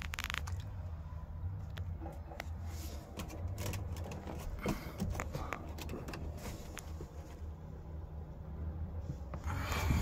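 Scattered light clicks, taps and scrapes from handling and movement inside an SUV cabin, over a steady low rumble. A louder rustle and knock comes just before the end.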